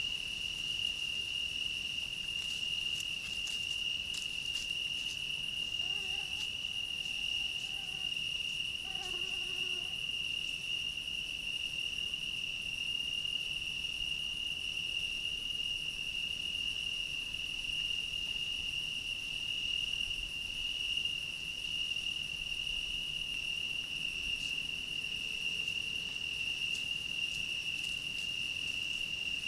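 Cricket song: one steady, unbroken high-pitched trill, with faint ticks and rustles near the start.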